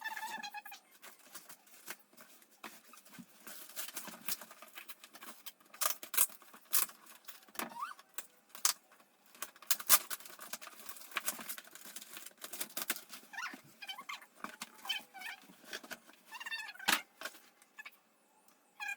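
Crackling and rustling of a parcel's packaging and packing paper being opened and unpacked, with many irregular sharp crinkles.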